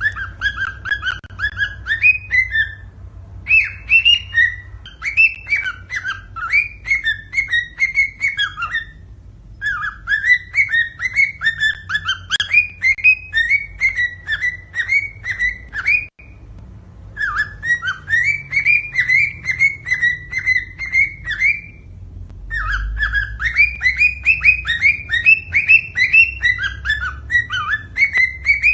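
Cockatiel singing: phrases of quick, repeated chirping whistles, each lasting several seconds, broken by short pauses.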